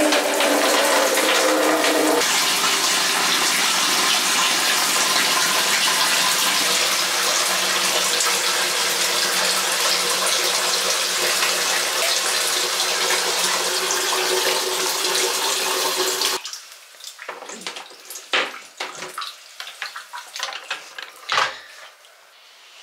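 Water running steadily from a tap for about sixteen seconds, then shut off abruptly. After it come a few scattered clicks and light handling knocks.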